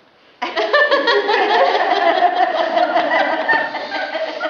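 Audience laughing. The laughter breaks out suddenly about half a second in and carries on loudly.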